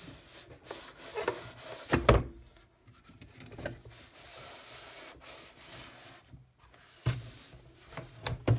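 Cardboard box and the LDPE-plastic-wrapped inner package scraping and rustling against each other as the package is slid out of the box, with a few sharp knocks, the loudest about two seconds in.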